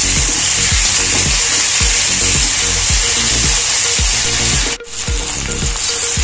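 Sliced onions, tomatoes and green chillies sizzling in hot oil in a kadai, stirred and scraped with a slotted metal spatula. The sizzle cuts out for a moment about two-thirds of the way through.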